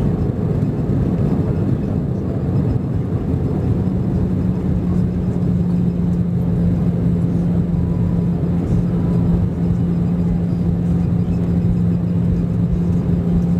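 Airbus A320 jet engines and airflow heard inside the cabin over the wing as the airliner rolls out on the runway after landing: a steady rushing rumble with a constant low hum.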